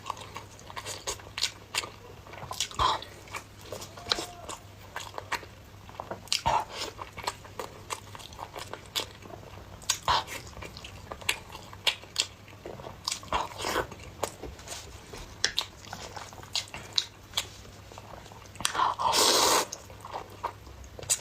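Close-up eating sounds of a person chewing noodles in spicy sauce with a chicken egg: wet chewing and mouth clicks coming irregularly, over a faint steady low hum. Near the end a louder rush of noise lasts about a second.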